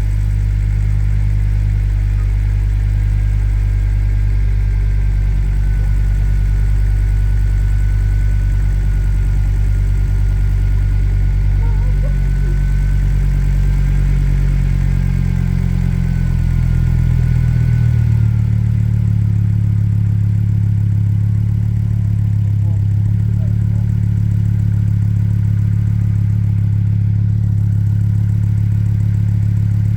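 Ford ST engine idling steadily on its first run after a cylinder head rebuild. A faint whine sits over the idle and stops about eighteen seconds in, when the idle note shifts slightly.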